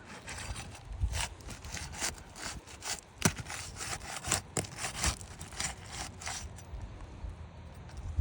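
Asphalt roof shingles being worked apart, giving irregular scraping and rubbing strokes, with one sharper scrape about three seconds in.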